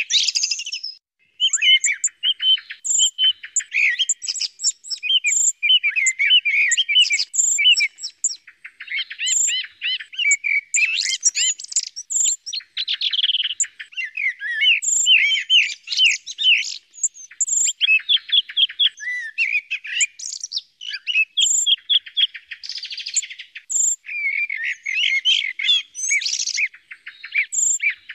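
Common blackbird and song thrush songs from a hunting call recording, one varied phrase after another with hardly a pause, with short high squeaky notes recurring throughout.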